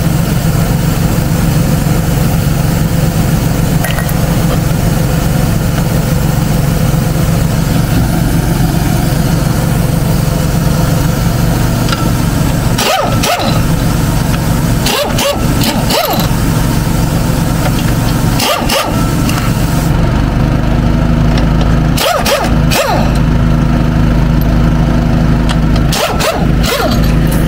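An engine running steadily, its tone shifting about twenty seconds in, with several short bursts of a cordless impact wrench spinning trailer lug nuts, the last few near the end.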